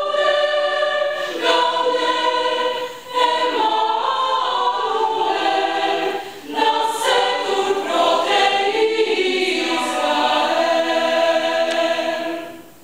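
Mixed choir singing, in phrases broken by brief pauses for breath, ending on a held chord that is released about twelve and a half seconds in.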